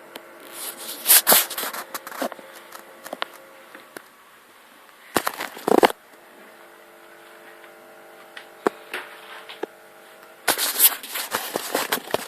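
Bosch SMS69M58EU dishwasher running its cycle: a steady hum with three irregular clusters of rattling and sharp clicks, and a few single clicks in between.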